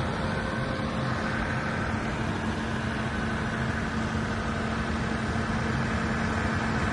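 Perkins diesel engine of a 90 kVA generator set running steadily, a constant drone with a faint steady whine above it.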